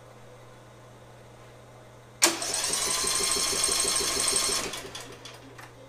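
Electric starter spinning a Craftsman riding mower's 18.5 hp Briggs & Stratton Intek OHV engine, kicking in suddenly a little past two seconds in, turning over fast and even for about two and a half seconds, then winding down. It spins freely because the engine has absolutely no compression after a backfire at shut-off, which the owner takes for bent or thrown push rods.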